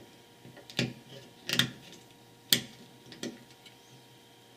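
Several short, sharp clicks and small knocks of a circuit board being popped out of its clips in a plastic housing.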